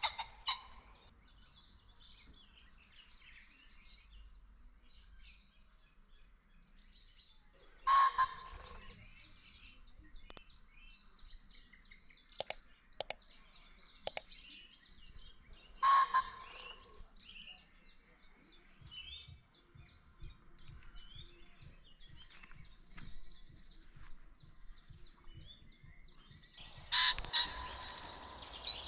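Birds chirping and singing in many short calls and trills, with louder calls about eight seconds in, again about sixteen seconds in, and near the end.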